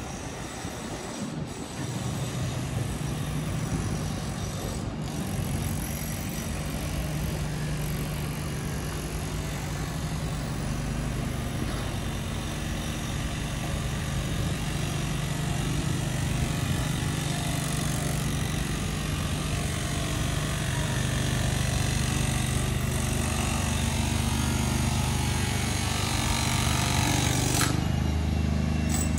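Street traffic with a steady low engine hum that grows gradually louder over continuous road noise.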